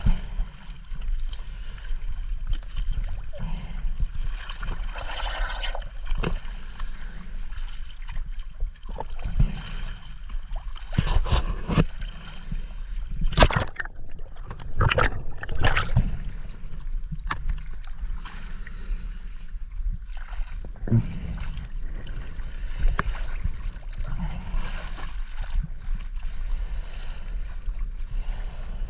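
Choppy lake water sloshing and splashing around a diver's mask-mounted camera at the surface, with a steady low rumble and irregular sharp splashes. The splashes are thickest around the middle, as the camera dips under the water.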